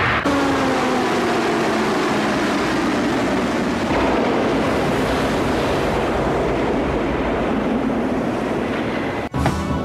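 Sound effects of the Starbug spacecraft crashing into the sea: a steady rushing roar of engine and surf, with a falling whine over the first few seconds.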